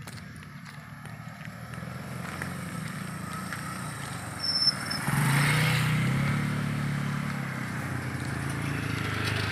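Small motorcycles passing close by on a concrete road, one after another. The engine sound builds and is loudest about halfway through as the first rider goes by, then a motor scooter passes near the end.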